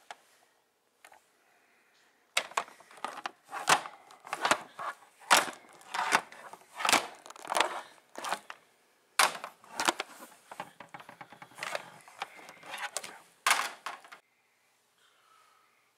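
Hard plastic action figures knocked together and against a plastic playset by hand: a quick, irregular series of clacks, knocks and scrapes that starts about two seconds in and stops a couple of seconds before the end.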